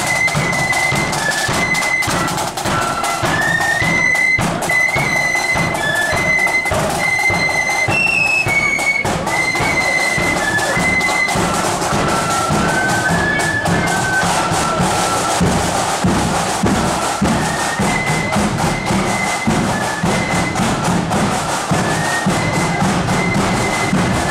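Marching flute band playing a tune: a high flute melody over side drums and a bass drum beating time.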